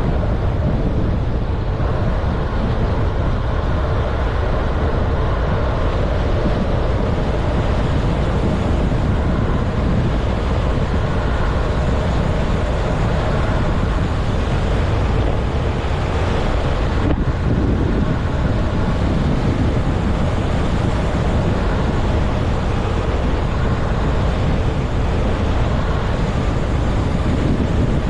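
Steady wind rushing over the microphone of a camera descending a mountain road at speed, mixed with low road rumble from wheels on asphalt.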